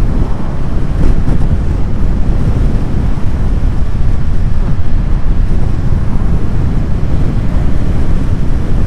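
Heavy wind noise rushing over the microphone of a motorcycle rider at road speed, a steady deep rumble with no let-up.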